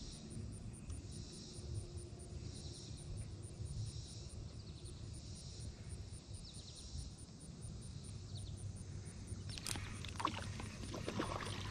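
Quiet pondside ambience: a faint high-pitched insect call pulsing about once a second over a low wind rumble on the microphone. Near the end, clicks and rustling from handling the spinning rod and reel.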